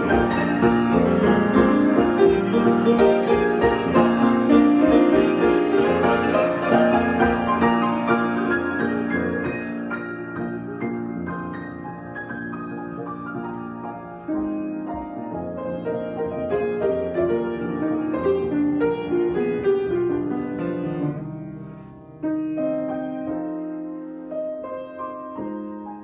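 Solo piano improvisation: dense, full chords and runs at first, thinning out and growing quieter, with new chords struck about 14 and 22 seconds in.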